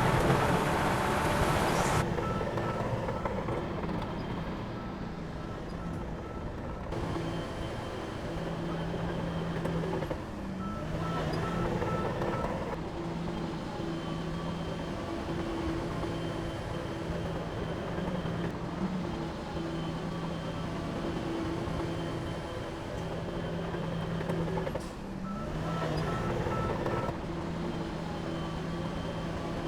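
Heavy diesel machinery running steadily, with a reversing alarm beeping in three short spells. The first two seconds are louder and rougher, then cut off abruptly.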